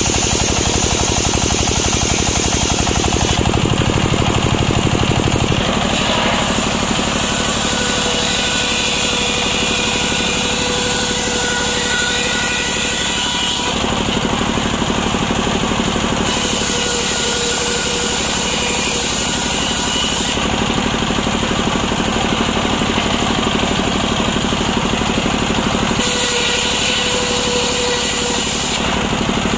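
Circular saw bench belt-driven by a stationary single-cylinder diesel engine, ripping waru (sea hibiscus) planks lengthwise. The engine runs steadily throughout, while the hiss and whine of the blade cutting the wood come and go over several passes.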